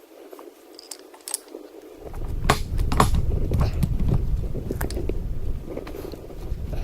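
Metal parts and tools clinking and clanking as they are handled, a few light clicks at first, then from about two seconds in several sharp clanks over a low rumble.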